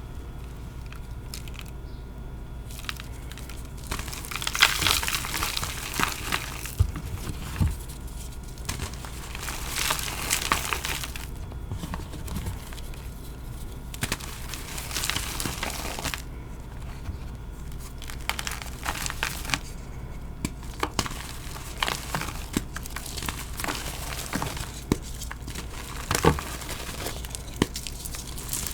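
Soft, dusty reformed blocks of Bon Ami powder crushed and crumbled by hand: spells of dry crumbling and crunching with a few sharp cracks, starting about four seconds in.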